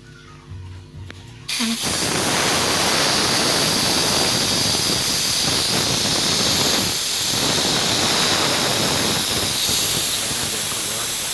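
Pressurised LPG hissing out of an opened refrigerator pipe. It starts suddenly about a second and a half in and blows steadily: the gas is being pushed through the condenser and evaporator to purge leftover compressor oil and water.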